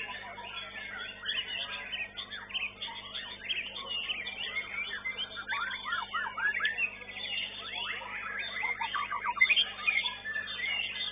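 White-rumped shamas (murai batu) singing, many at once: dense, overlapping fast whistles, chirps and trills, with a louder burst about nine seconds in.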